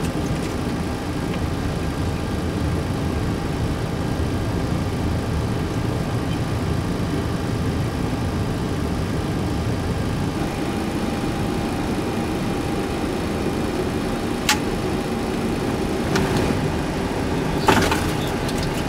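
Steady mechanical drone of a Boeing 737-300 flight deck, with a few sharp clicks of cockpit switches and knobs near the end.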